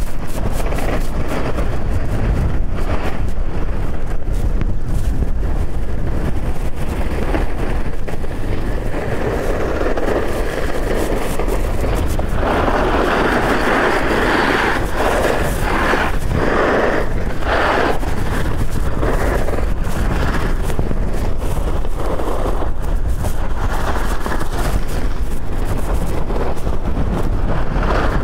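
Skis sliding and scraping over hard-packed snow at speed, with wind buffeting the microphone. The scraping grows louder for several seconds about halfway through.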